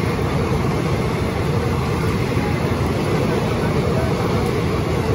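Passenger coaches of an express train running past at speed, a steady rumble of wheels on rail, with rain falling.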